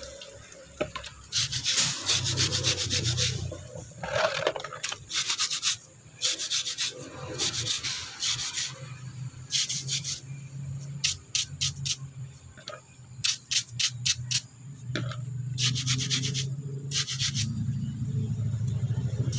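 Stiff plastic-bristled brush scrubbing a wet, soapy rough stone held in the hand, in bursts of quick strokes with short pauses between them. A low hum runs underneath, growing louder near the end.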